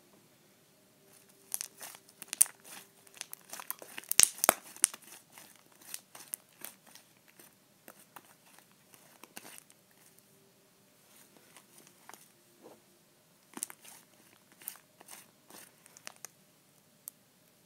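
Homemade slime being squeezed, stretched and folded by hand, giving off irregular wet clicks and pops that come in flurries, busiest in the first few seconds and again near the end.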